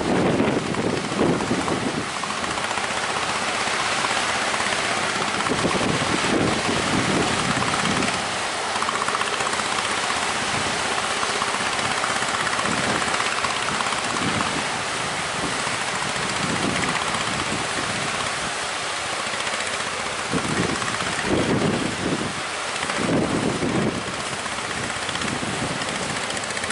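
Strong wind buffeting the microphone in irregular gusts over a steady rushing noise of open sea and waves.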